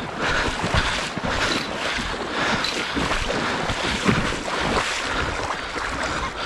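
A hooked king salmon thrashing and splashing at the surface of shallow river water as it is brought into a landing net, with repeated splashes over the rush of the river and wind noise on the microphone.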